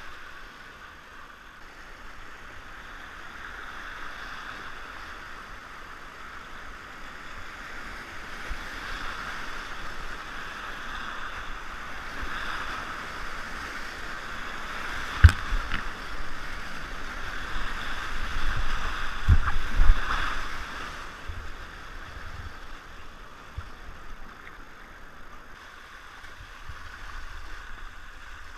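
Rushing whitewater of a creek rapid heard from a kayak, swelling as the boat runs through the rapid. A sharp knock about halfway through and two heavy thumps a few seconds later stand out as the loudest sounds, then the water noise eases toward the end.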